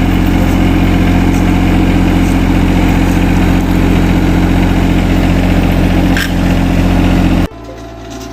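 A motor running steadily and loudly with a low hum, cutting off abruptly near the end.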